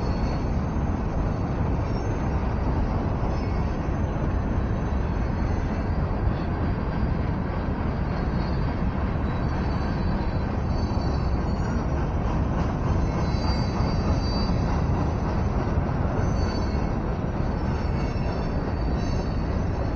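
Freight train rolling through a road crossing: the steady noise of its cars passing, with faint high squeals coming and going.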